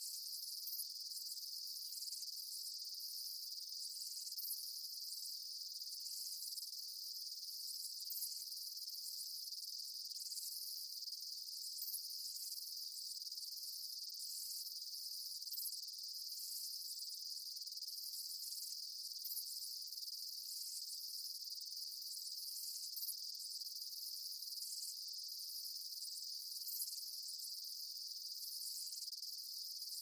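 Insect chorus: a steady high-pitched trill, with short, even higher chirps every second or two.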